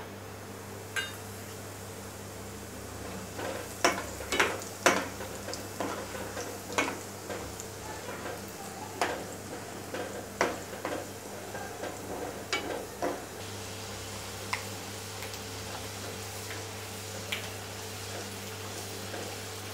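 Peanuts frying in hot oil in a kadhai, a steady low sizzle, with a metal slotted spoon stirring and clinking against the pan. The clinks and scrapes come thickest in the first two-thirds and thin out towards the end.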